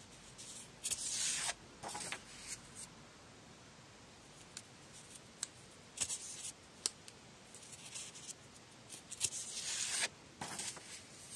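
Paper sheets being handled and turned over, rustling in short bursts about a second in and around six seconds, with a longer rustle near the end as a page is turned, and small paper clicks between.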